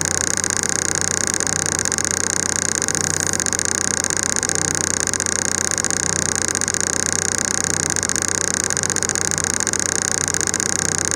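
Train's diesel engine idling steadily while the train stands still, heard from inside a passenger car, with a steady high hiss over the low hum.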